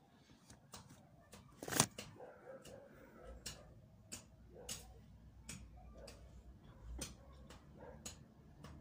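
Handling noise from the recording camera being moved and held: scattered faint clicks and taps, one louder knock about two seconds in, and a low rumble of fingers on the body from about three seconds in.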